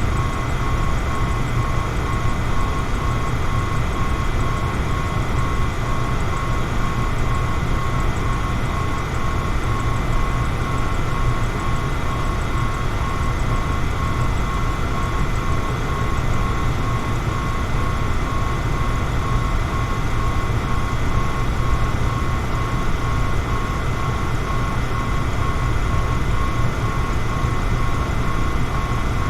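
Electric fan running steadily: a constant rush of air over a low motor hum, with a faint high steady tone above it.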